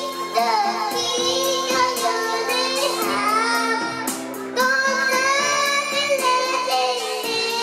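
A young girl singing into a handheld microphone over backing music with a steady beat, with a short break in her voice about four seconds in.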